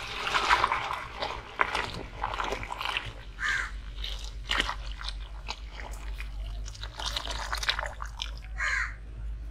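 Irregular crunching and clicking sounds, with two short calls about a third of the way in and near the end.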